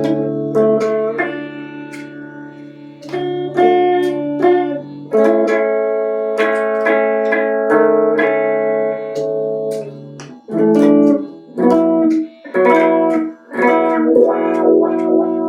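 Guitar playing chords: plucked chords left to ring, then from about two-thirds of the way in a series of short, clipped chords.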